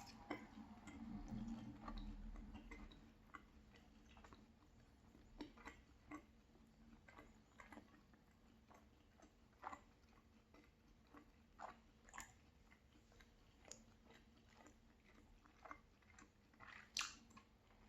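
A person chewing a mouthful of fried cheese pancake close to the microphone: quiet, wet mouth sounds with scattered lip smacks and clicks.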